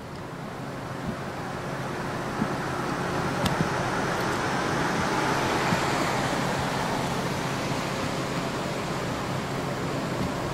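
Road traffic noise: a passing vehicle's tyre and engine noise swells to a peak about halfway through over a steady traffic hum, with a few faint clicks.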